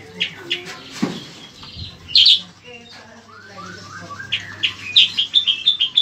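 Caged bayeman (cicak kurincang) songbird singing in sharp, high chirps. Near the end it breaks into a quick run of short falling notes, about five a second.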